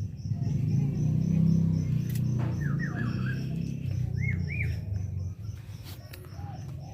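Small birds chirping in short rising-and-falling notes, with an insect pulsing steadily about five times a second. Both sit over a louder low rumble that eases off toward the end.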